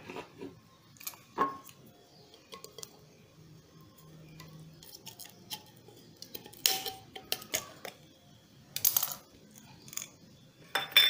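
Scattered metallic clinks and taps as a small tin of contact glue is handled and its metal lid is pried open with a metal tool, with the sharpest clinks about 6.5 s, 9 s and 11 s in.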